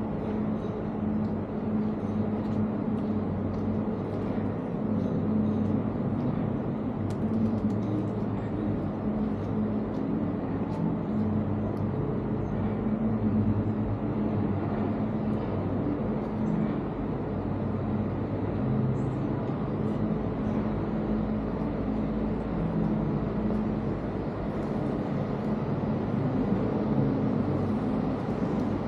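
City street traffic noise with a steady low engine hum and no pauses.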